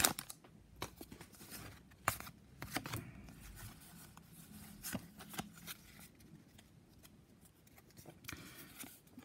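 Pokémon trading cards being handled, slid against each other and fanned out, giving scattered soft clicks and snaps, with a rustle of the foil booster wrapper near the start.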